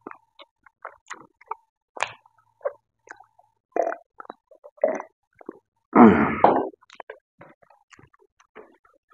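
Close-up mouth sounds of a man eating pork and rice by hand: wet smacking and chewing clicks, gulps of water about four seconds in, and a loud throaty sound from his mouth and throat about six seconds in.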